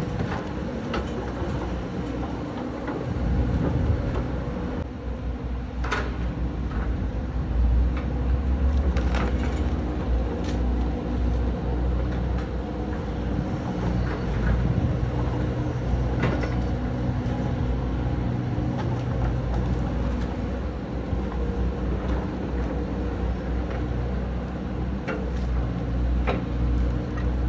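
Excavator's diesel engine running steadily with a held hum, its low rumble swelling louder at times as it works, with a few sharp knocks scattered through.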